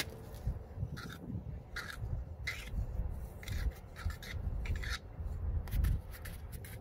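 Primer dauber swabbing PVC primer onto the end of a PVC pipe: a series of short rubbing strokes, over a low rumble.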